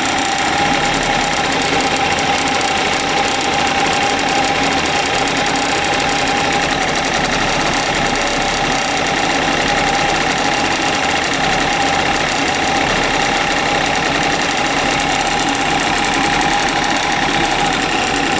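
Suzuki Address 110 scooter engine running steadily with an unpleasant ticking ('цоканье', 'цок') in it. The owner suspects the piston or the wrist pin is knocking.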